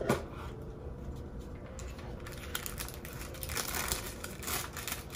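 Paper rustling and crinkling as a small white cardboard gift box is opened and the thin paper inside is unfolded. A short tap comes right at the start, and the rustling gets busier from about halfway through.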